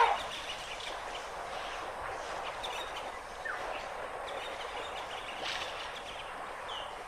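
Steady outdoor background hiss with a few faint bird chirps.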